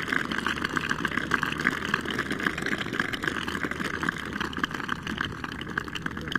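Golf gallery applauding steadily, easing slightly toward the end.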